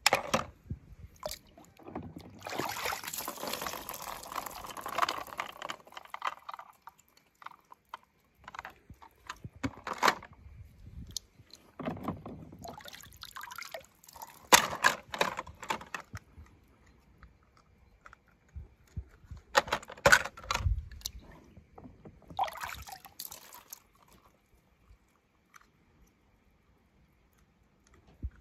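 Water splashing and dripping in a plastic tub as small die-cast toy cars are dipped in by hand and lifted out, with a longer stretch of splashing about two to six seconds in. Short sharp clicks and knocks come between the splashes.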